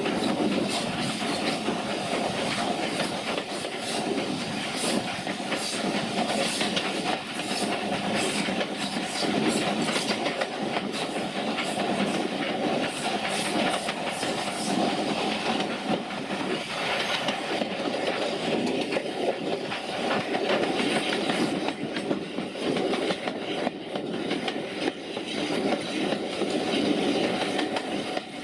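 Steam-hauled passenger coaches running along the line, heard from a carriage window: a steady rolling rumble with the wheels clicking over the rail joints.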